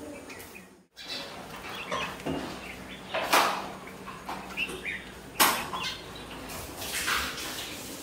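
Bulbuls at a feeding ledge giving short chirps, with two loud rustling flutters of wings about three and five seconds in. The sound drops out for an instant about a second in.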